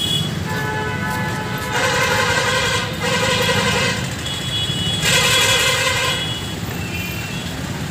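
Street traffic with a vehicle horn honking two long blasts, each about a second long, over a steady engine and road rumble.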